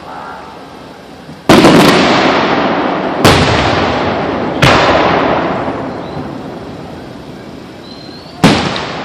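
Aerial fireworks shells bursting: four loud bangs a second or more apart, each trailing off in a long rumbling echo, with a faint rising whistle just before the last one.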